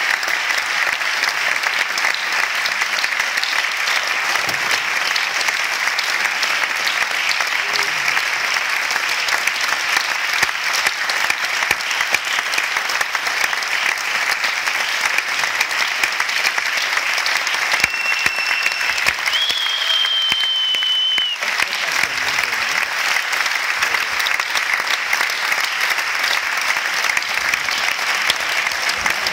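Audience applauding steadily in a concert hall, with one pair of hands clapping close to the microphone. A high steady tone that steps up once in pitch cuts through the clapping for about three seconds past the middle.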